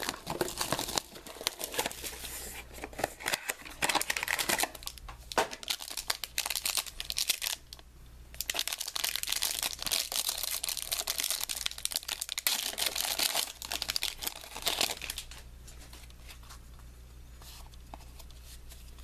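Hands tearing open and crinkling the foil wrapper of a Panini Prime Signatures football card pack, in repeated crackling rustles. The rustling drops to faint card handling for the last few seconds.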